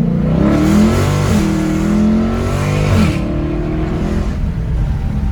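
2018 Dodge Challenger Scat Pack's 392 HEMI V8 accelerating hard: the revs climb, drop at an automatic upshift about a second in, climb again and drop again about three seconds in, then it runs steady at lower revs.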